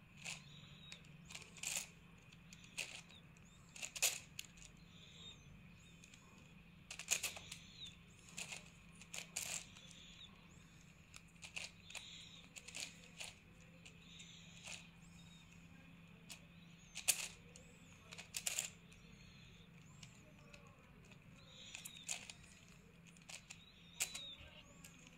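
A plastic 9×9 Rubik's cube being turned by hand: the layers give irregular sharp clicks and clacks, one or a few every couple of seconds.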